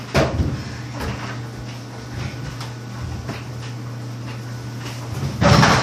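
Knocks and bumps of a person climbing onto and sitting on a running washing machine, over the machine's steady low hum; near the end a louder scuffing bump.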